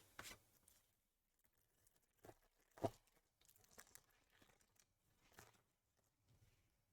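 Mostly near silence, broken by a few faint crinkles and rustles of a foil card-pack wrapper being torn open and cards being handled, the loudest about three seconds in.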